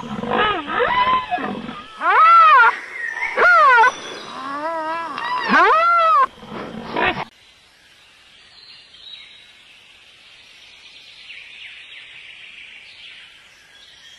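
Rhinoceros squealing: several loud, high-pitched calls, each rising and then falling in pitch, which stop about seven seconds in.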